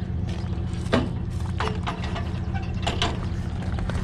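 Sharp plastic-and-metal clicks and knocks, several of them, as a string trimmer is pushed and seated into the clamp of a trailer-mounted trimmer rack, over a steady low engine hum.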